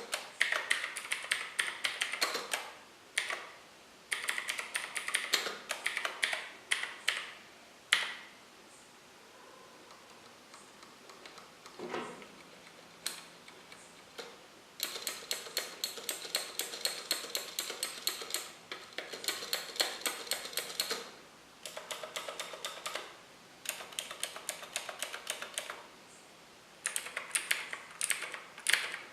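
Typing on a TVS Gold mechanical keyboard fitted with Gateron Blue clicky switches: quick runs of sharp key clicks in bursts, with short pauses, and a sparser stretch with only a few strokes in the middle.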